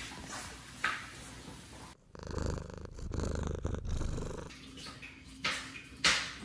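Cat purring, a rough low rumble loudest for about two seconds in the middle, with short breathy puffs about once a second before and after.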